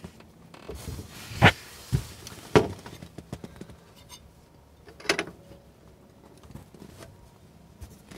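Steel combination wrench clicking and knocking against metal as it is fitted to a Scott brake master cylinder's fill plug and snugs it down: a handful of sharp clicks, the loudest about a second and a half and two and a half seconds in, another near five seconds.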